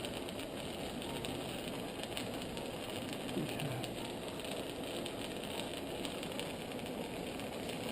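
Steady background hum and hiss of operating-room equipment.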